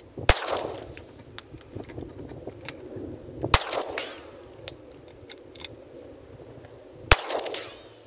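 Three shots from a 10mm Glock 20 SF pistol, about three and a half seconds apart, each followed by a short echo.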